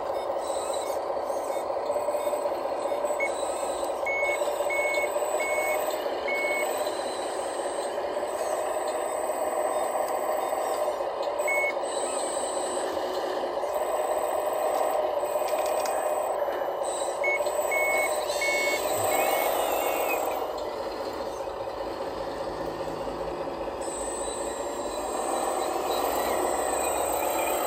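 Radio-controlled Cat 980L wheel loader's sound module playing a diesel engine running, its note rising and falling as the machine works. A reversing beeper sounds in two runs of short beeps, a few seconds in and again past the middle.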